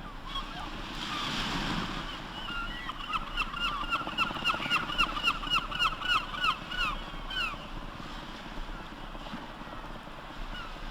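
A bird calling in a rapid run of short, falling notes, about four a second for some five seconds, over a steady wash of sea noise. The noise swells briefly about a second in.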